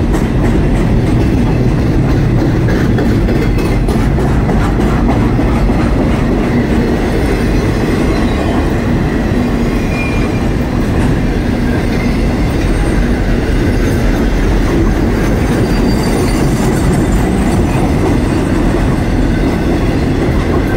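CSX intermodal freight train's container cars rolling past at close range: a steady, loud, heavy rumble with wheels clacking over the rail joints.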